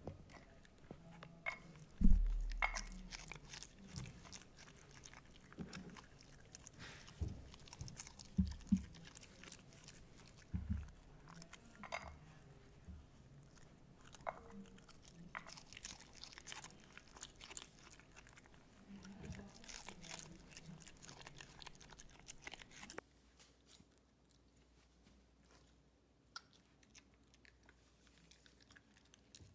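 A small dog crunching and chewing pieces of cabbage close to the microphone, in a run of crisp bites. A loud thump about two seconds in; after about 23 seconds the crunching becomes sparse and quiet.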